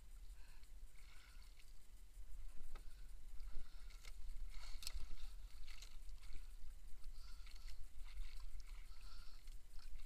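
Water lapping against the hull and outrigger of a small drifting boat over a steady low rumble, with a few light knocks about three to five seconds in.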